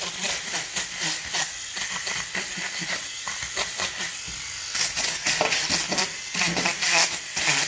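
Electric fish scaler running and scraping scales off a fish in quick repeated strokes, busier from about halfway through.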